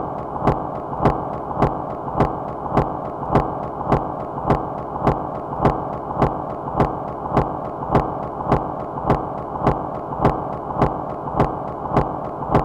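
Minimal micro-industrial rhythmic noise music: a sharp click repeats at an even pulse a little under twice a second over a constant noise bed, with a faint steady tone running underneath.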